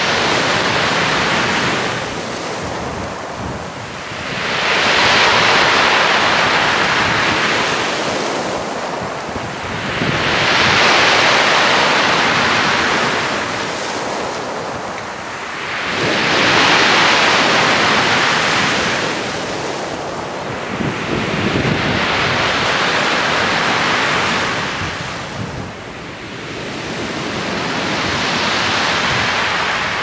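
Sea waves breaking on a shingle beach of rounded pebbles and washing up and back over the stones. They come in slow surges of hiss about every five to six seconds.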